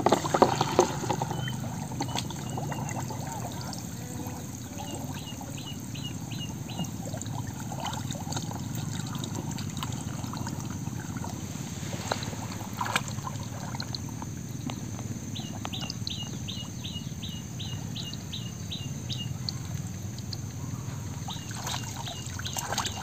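Pond water sloshing and trickling as a man wades through it, his hands searching the muddy bottom for apple snails, with a few sharp knocks. A bird calls three times in fast runs of short, repeated chirps.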